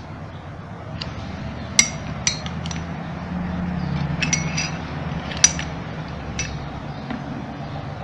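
Screwdriver tip clinking against the metal of a pedestal fan motor's bushing and end housing while prying out the worn sleeve bushing: about seven sharp, briefly ringing clinks, some in quick pairs, over a steady low rumble in the background.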